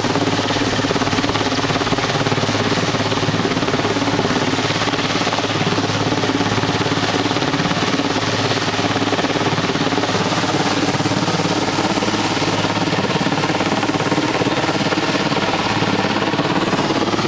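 Large helicopter flying low overhead: a loud, steady rotor beat with engine drone that does not let up.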